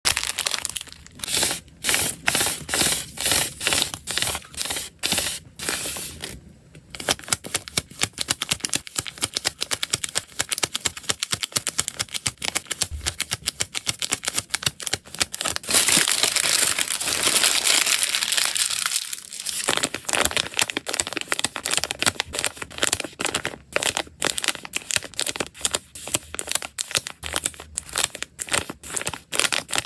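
Crinkling and tapping of plastic packaging as hands handle small clear zip-lock snack bags and peel paper labels from a roll to press onto them. It is a rapid run of sharp crinkles and taps, with a denser, continuous crinkle for about three seconds a little past the middle.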